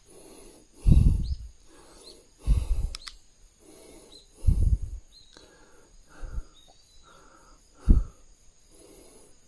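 A person breathing hard, with five loud, low puffs of breath about every one and a half to two seconds.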